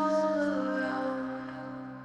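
Slow, calm ambient music: sustained pad-like chords, with a few notes shifting about halfway and the sound slowly fading.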